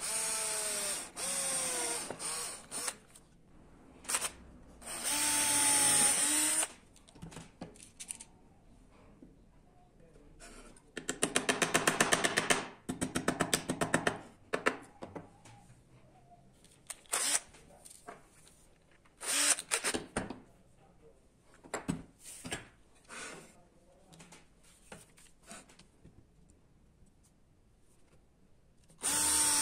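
Makita cordless drill drilling small holes in wood in short bursts, its motor pitch rising and falling as the trigger is eased. Midway comes a fast, even run of clicks lasting about three seconds, then a few scattered knocks, and the drill starts again near the end.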